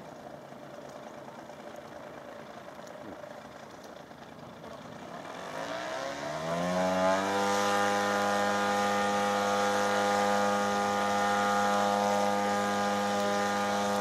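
Engine and propeller of a radio-controlled aerobatic model plane running up: the pitch rises over about a second, some six seconds in, then holds at a steady high speed and cuts off suddenly at the end.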